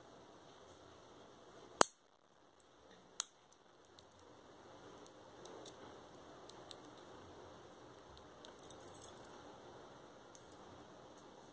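Long fingernails being picked at and handled: two sharp clicks about a second and a half apart, then faint scattered ticks and taps.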